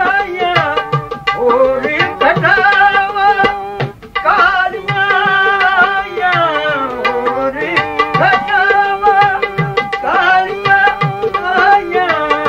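A man singing a Punjabi Sufi song in ghazal style, with long held, wavering notes and melodic glides, one phrase sliding down in pitch about six seconds in. Tabla accompanies him with strokes about twice a second.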